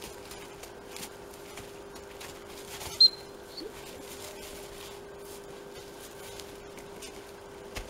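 A short, sharp whistle blast about three seconds in, given to a dog as the start signal for a close-range search, with a fainter whistle note just after. Soft footsteps and small scuffs in thin snow around it.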